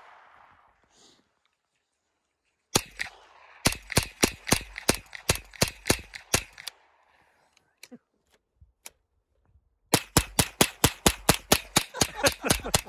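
Scoped .22 rifle fired in rapid semi-automatic strings, about four sharp shots a second. One string starts a few seconds in and stops about halfway, and another starts near the end. A few faint clicks fall in the gap between them.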